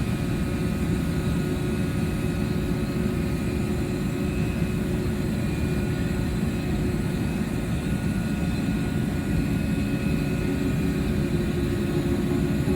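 TIG welding set running during a weld on a pipe joint: a steady hum with a hiss over it, unchanging throughout.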